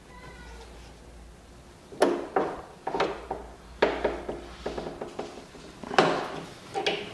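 Sharp metallic clinks and knocks of an adjustable wrench on a rifle's threaded flash hider as it is cranked about 20 degrees past hand tight. They come in short groups of two or three, starting about two seconds in.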